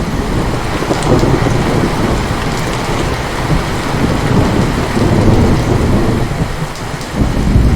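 Heavy rain falling steadily, with low thunder rumbling under it in slow swells that build about a second in, again around the middle, and near the end.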